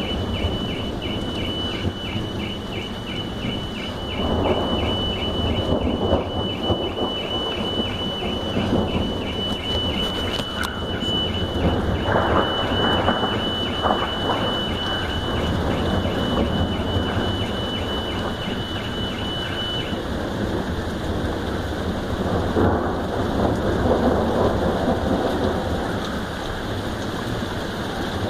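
Heavy rain falling steadily, with rolling thunder rumbling up several times. A high-pitched, regularly pulsing car alarm sounds over the rain and cuts off about two-thirds of the way through.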